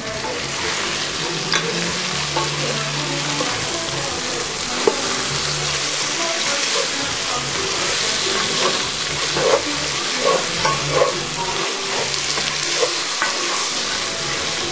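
Food sizzling steadily in hot oil in a pan while it is stirred, with a few brief knocks of the utensil against the pan, several of them close together about two thirds of the way through.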